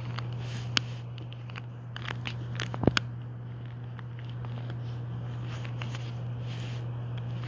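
A few light clicks and taps, the sharpest about three seconds in, over a steady low hum.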